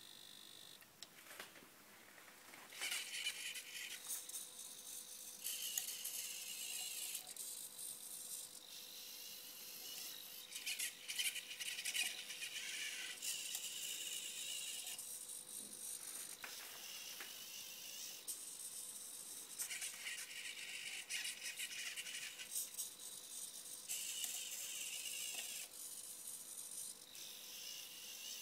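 Small electric motors and gears of a home-built Arduino-controlled robotic arm whirring as the arm moves its joints and gripper. They run in a string of bursts a few seconds long with short pauses between, starting about two and a half seconds in.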